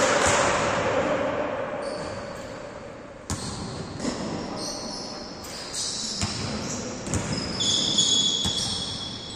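Basketball bouncing on an indoor court, a few sharp thuds ringing in a large hall, with high squeaks of sneakers on the floor in the second half.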